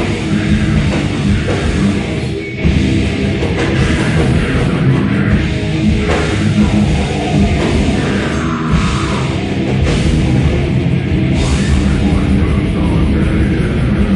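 Heavy metal band playing live, with guitars and a drum kit, loud and dense throughout. The sound dips briefly about two and a half seconds in.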